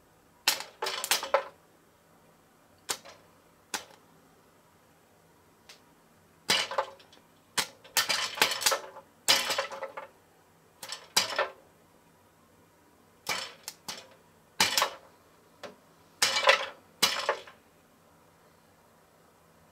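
Popcorn kernels popping inside a Junior Chef See-It-Pop toy popper that is heated by a light bulb: sharp, irregular pops, some single and some in quick runs of several.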